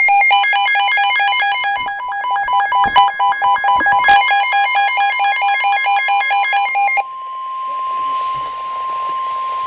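An electronic warbling alert tone that alternates rapidly between two pitches, a few times a second. About seven seconds in it switches to a single steady tone near 1 kHz: the NOAA Weather Radio warning alarm tone that comes before a severe thunderstorm warning.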